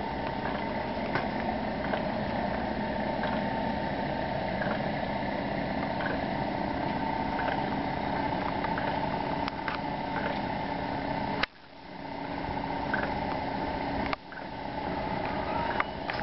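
A small engine or motor running steadily, with scattered light ticks. Two sharp knocks about two and a half seconds apart near the end, after each of which the running sound dips and swells back.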